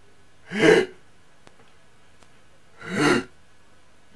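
A man's voice giving two short, loud exclamations, one just under a second in and the other about three seconds in.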